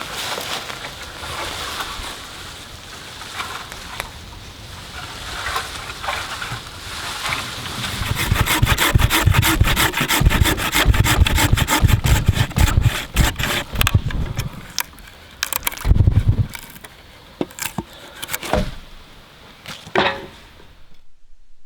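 Hand saw cutting through wood in quick back-and-forth strokes, with scattered knocks and rubbing between cuts; the sound cuts off suddenly near the end.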